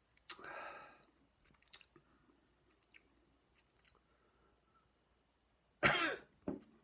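Mouth sounds of someone tasting a sip of whisky: lip smacks and tongue clicks, with a short breathy vocal sound shortly after the start and a louder throaty exhale near the end.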